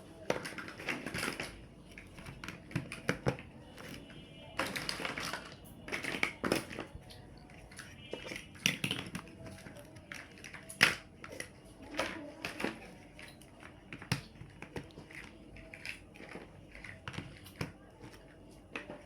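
Plastic building blocks being handled and snapped together: irregular sharp clicks and clacks with short bursts of rattling. One click about eleven seconds in is louder than the rest.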